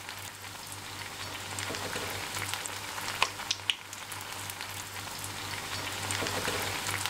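White bread slices deep-frying in oil on high heat in a steel kadhai: a steady sizzle, with a few sharp clicks scattered through it.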